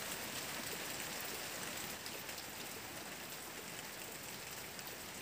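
Steady rain falling, an even hiss that neither builds nor breaks.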